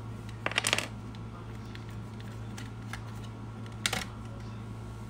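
Metal clicks and rattles of a 3 mm T-handle allen key meeting the fender screw on an electric scooter's front wheel. A quick cluster of clicks comes about half a second in and a couple more near four seconds, over a steady low hum.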